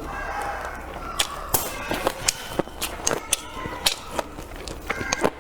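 Close-up eating sounds: a person biting and chewing, with sharp, irregular crunches and mouth clicks about two or three times a second.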